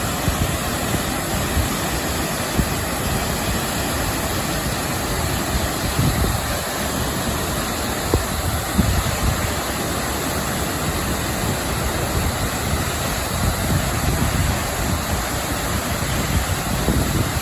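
Waterfall's water falling and rushing steadily: a constant, unbroken roar of water, with uneven low rumbling gusts underneath.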